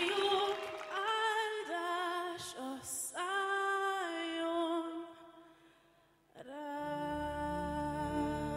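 A woman singing solo, long held notes with almost no accompaniment. The voice fades away a little past the middle, then comes back with one long held note over a low instrumental backing.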